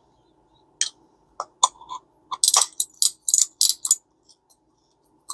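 Drag of a Garcia Mitchell 410 spinning reel clicking in short, irregular runs as the spool is turned against it. The clicks are densest from about two to four seconds in. This is a test that the reassembled drag works.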